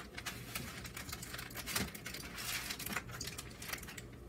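Aluminium foil crinkling in a series of short bursts as hands press and fold the foil lining up around the sides of a baking pan.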